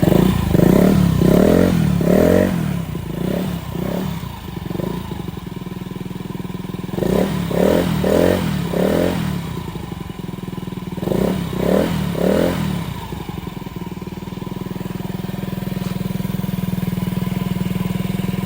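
Honda Ruckus 49cc four-stroke scooter engine through a Beams R-Evo titanium exhaust with its silencer insert still fitted, blipped several times in three quick bursts of revs and then settling to a steady idle for the last few seconds. It sounds super quiet for an aftermarket exhaust.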